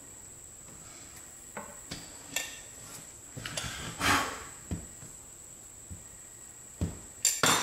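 Utility knife clicking and scraping against a hardwood floorboard as a delaminated strip of its top layer is worked loose: scattered light clicks, a longer scrape about four seconds in, and a few sharper knocks near the end.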